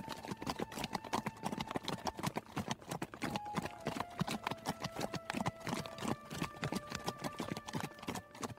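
Horse hoofbeats, fast and continuous, as a horse is ridden across sand, with a soft held melody underneath.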